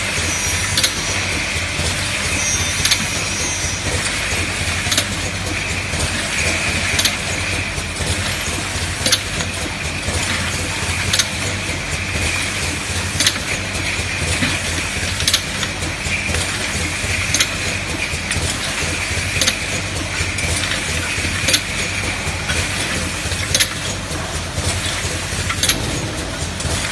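Automatic ointment tube filling machine running: a steady mechanical hum and hiss, with a sharp clack about every two seconds and lighter clicks between.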